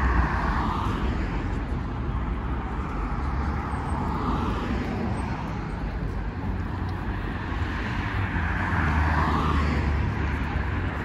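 Street traffic: a steady low rumble with cars swelling past about three times, near the start, about four seconds in and about nine seconds in.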